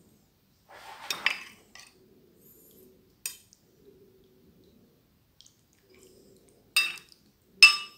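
Metal spoon clinking against a ceramic bowl while tomato sauce is scooped out and spooned over a plate of noodles. There are four sharp, ringing clinks: one about a second in, one a little after three seconds, and two close together near the end, the last the loudest.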